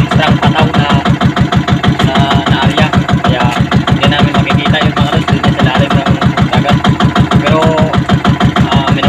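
Engine of a small motorised fishing bangka running steadily under way, with a fast, even pulsing beat.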